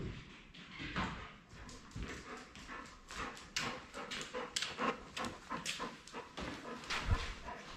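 Golden retriever vocalizing in a quick run of short whimpering sounds, mixed with handling noise, and a single thump about seven seconds in.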